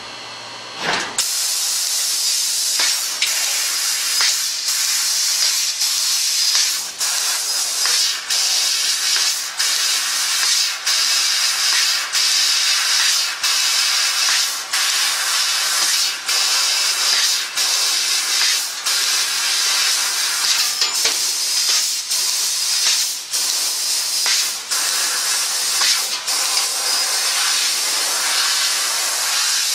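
3 kW fiber laser cutter cutting 3 mm stainless steel sheet: a steady high hiss of the assist-gas jet at the cutting head as it cuts a series of small holes. It starts about a second in and is broken by brief dips every second or two.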